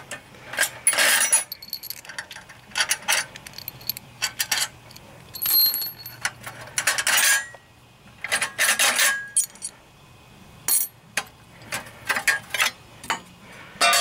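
Steel head bolts and a bracket clinking and scraping as they are taken out by hand from the cylinder head of a 10 hp Briggs & Stratton engine. The sound comes as irregular sharp clicks, with a few longer rasping bursts about a second in, around six to seven seconds, and near nine seconds.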